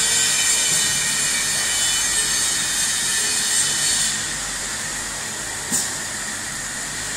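Stainless steel keg washer-filler machine running a wash cycle: a steady hissing rush with a few thin high tones, dropping in level about four seconds in, and a single sharp click near six seconds.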